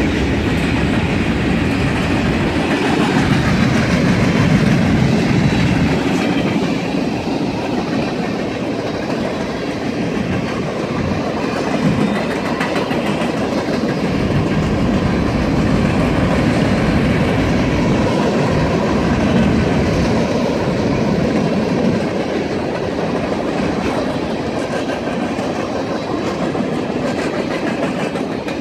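CN freight train cars, including empty centerbeam flatcars, rolling past close by with a steady noise of steel wheels on the rails.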